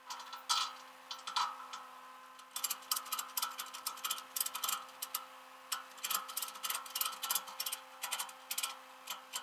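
Irregular light clicking and rattling, several sharp clicks a second in loose clusters, getting busier after about two and a half seconds, over a faint steady hum.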